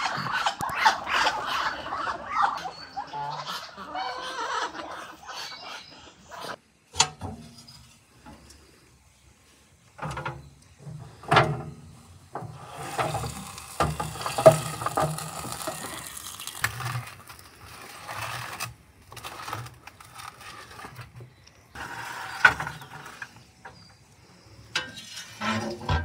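Muscovy ducks calling for the first few seconds, then scattered sharp metal clanks and scrapes from a sheet-metal wood-fired stove as a baking tray is slid out of its oven and the oven door is knocked shut near the end.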